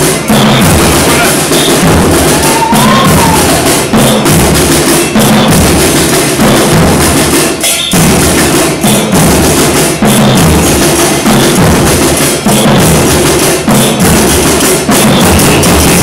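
Murga drum troupe playing loud, continuous street-carnival drumming: bass drums and snare drums in a steady driving rhythm.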